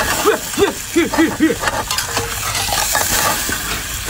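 Seafood and sauce sizzling hard in a large wok with a steady loud hiss, stirred and tossed with metal tongs and a spatula that click against the pan, while flames flare up from the burning cooking wine. About half a second in, a man lets out five short cries in quick succession.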